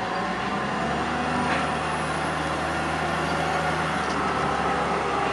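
Volvo wheel loader's diesel engine running steadily as the machine drives with a grapple full of logs, a constant low engine hum.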